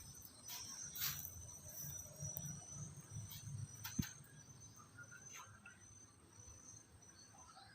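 Faint, steady high-pitched trilling of insects, with a single sharp click about four seconds in.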